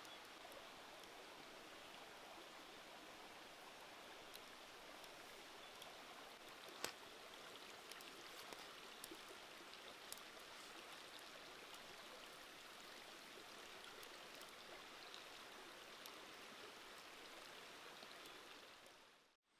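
Pot of eel soup at a rolling boil: faint, steady bubbling with a few small sharp pops, the sharpest about seven seconds in. It cuts off abruptly just before the end.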